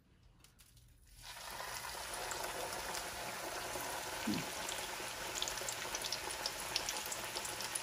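Hot oil in a frying pan sizzling as a whole cauliflower coated in besan batter and breadcrumbs is set into it. After about a second of quiet the sizzle starts and then runs steadily, with many small crackling pops.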